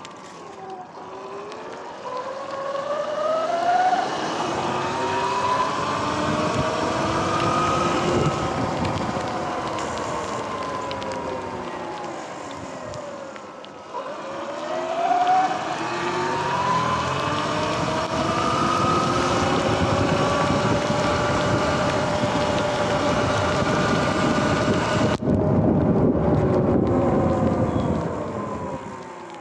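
Sur-Ron Light Bee X electric dirt bike's motor whining, rising in pitch as it speeds up and falling as it slows, twice over. Underneath is a steady hiss of wind and tyres on the wet road.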